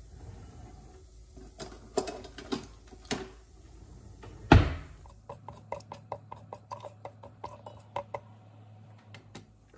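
Cumin and mustard seeds heating in oil in an Instant Pot's stainless steel inner pot on sauté, giving a few sharp pops and one louder crack about halfway. Then a silicone spatula stirs them, a quick run of light clicks against the steel pot, about three or four a second.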